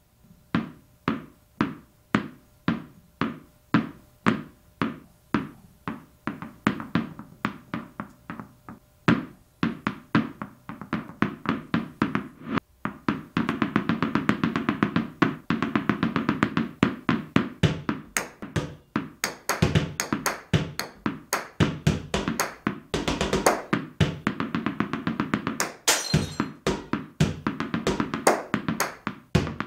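Percussive music of knocking, tapping strokes, at first about two a second, then growing denser and busier with sharper clicks added after about 18 seconds in.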